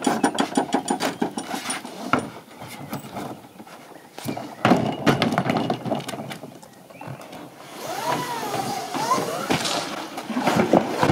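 Knocks, clatters and scrapes of an inflatable rubber dinghy being carried and set down on wooden dock boards, with indistinct voices.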